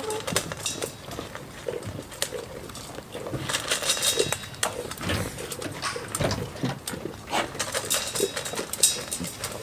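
Chickens and goats feeding at close range: a stream of short clicks and taps, with soft low chicken clucks among them.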